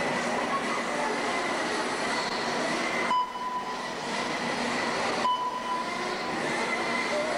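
Several 1/10-scale RC race cars running together on a dirt track, making a steady whine and hum of motors. The sound breaks off and starts again abruptly twice, about three and five seconds in.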